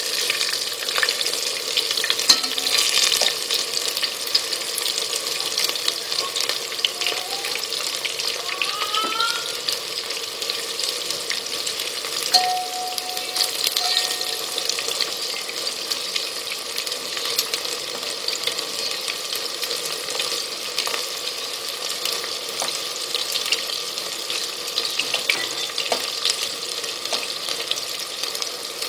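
Food frying in hot oil in a pan, with a steady sizzle and occasional clicks of a utensil stirring or scraping.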